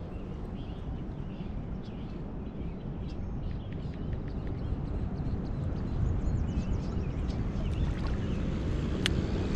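Steady low rumbling outdoor noise, with a few faint light clicks now and then.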